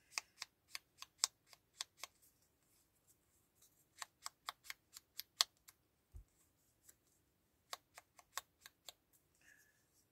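Faint, irregular light clicks and taps of paper pieces and a craft tool against the tabletop as card-piece edges are inked, in runs of about three or four a second with pauses, and one low thump about six seconds in.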